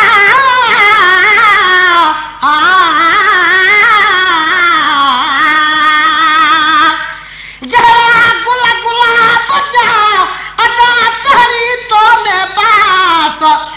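Sindhi maulood devotional singing: one voice holds a long, wavering, ornamented note for about seven seconds, then after a short break sings a run of quicker rising and falling phrases.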